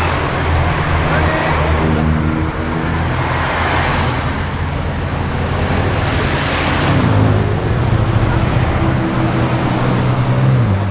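Car engines running in slow road traffic, with one car passing by about two-thirds of the way in and an engine's note dropping in pitch near the end.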